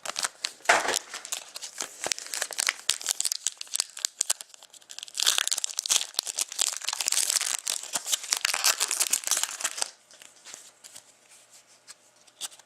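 Plastic trading card packaging being torn open and crinkled, a dense crackling with many sharp crackles that is loudest in the middle and stops about ten seconds in. A few light clicks follow.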